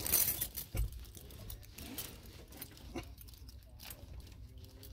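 Handling noises in a vehicle cab: rustling and clicks, loudest in the first moment, with a light jangle of keys.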